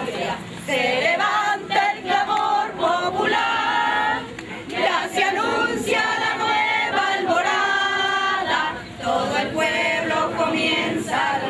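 A group of voices singing together, with long held notes sliding from one pitch to the next.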